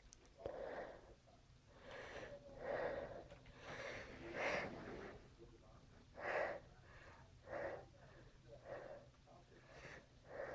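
A person's wheezy, hitching breaths and sniffs through the nose, about one a second, as a tickle in the nose builds toward a sneeze.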